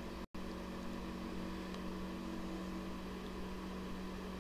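Steady low background hum of room noise, with no other sound; it cuts out completely for an instant just after the start.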